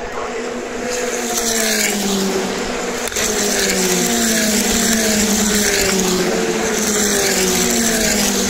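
A pack of W Series single-seater race cars with turbocharged four-cylinder engines going past one after another at racing speed, each engine note dropping in pitch as it goes by.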